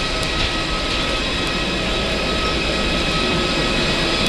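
Jet aircraft on an airport apron running their engines or auxiliary power units: a steady rush with a constant high whine.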